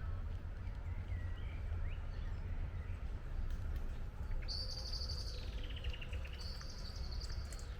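Songbird singing a high, fast trill about halfway through that slides down in pitch, then another high trill until near the end, with fainter bird chirps earlier, over a steady low rumble.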